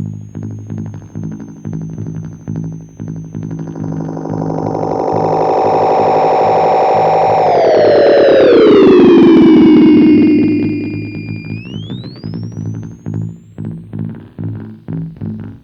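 Circuit-bent Waldman flanger pedal making a distorted electronic drone with rapid stuttering pulses. About four seconds in, a swelling tone builds, then sweeps downward in pitch, while a high whistle dips and climbs again before the stuttering returns.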